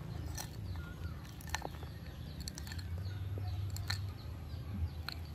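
Coarse gravelly potting mix crunching and clicking in a few scattered small ticks as hands press a small glazed ceramic pot down into it, over a low steady hum.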